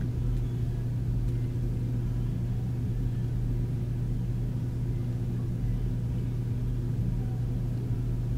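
Steady low mechanical hum of a portable air conditioner running, holding an even level throughout.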